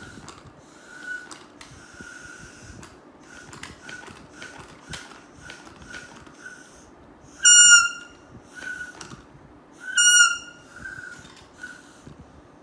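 Plastic toy whistle being blown in a string of short, soft toots, with two much louder, shrill blasts about seven and a half and ten seconds in, each dipping slightly in pitch as it ends.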